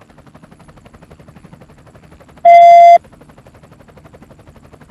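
A loud, steady half-second electronic beep, a radio tone, about two and a half seconds in, over the fast, even flutter of the helicopter's rotor picked up on the aircraft's audio.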